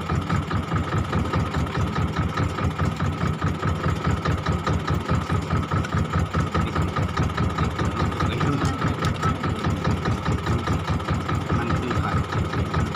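Fishing boat's engine running steadily, with an even, rapid beat in its low drone and a steady high whine above it.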